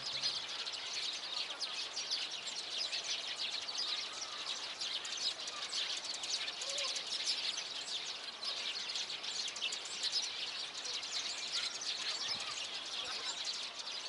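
A chorus of many small birds chirping and twittering together, a dense, continuous stream of short high-pitched calls.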